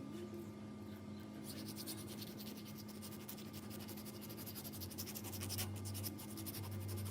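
Rapid, even scratching strokes, like an abrasive or brush being worked over metal, starting about one and a half seconds in, over a steady low hum.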